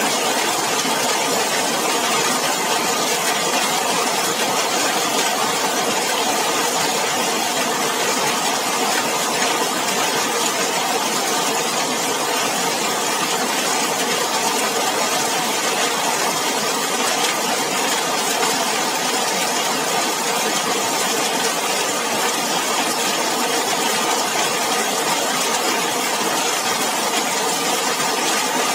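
Heavy rain falling on a zinc roof and splashing on wet pavement, a dense, steady hiss with no let-up.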